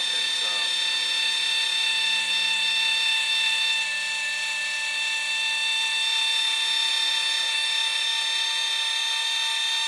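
12-volt electric linear actuator with a 12-inch stroke running under battery power, a steady high whine from its motor and gearing as it pushes the snowplow blade round to angle it.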